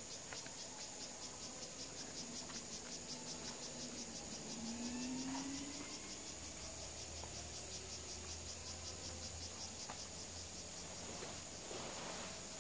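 Insects trilling: a steady, high-pitched chorus that pulses rapidly through the first half, then holds steady.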